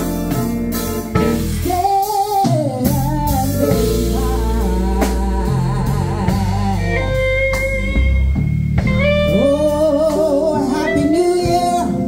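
A live band with electric guitar and drums plays while a woman sings into a microphone through the PA. Her voice comes in about two seconds in, with long held notes and vibrato.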